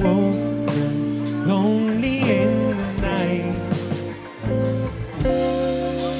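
Live band playing a slow song: a man singing over guitar, bass, drums and held keyboard chords, with a new chord held from about five seconds in.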